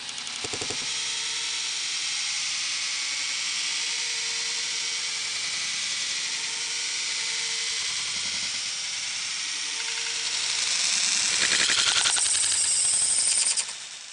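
K'nex roller coaster machinery, plastic gears and motors, running with a fast, steady clatter that grows louder about ten seconds in and drops off sharply near the end.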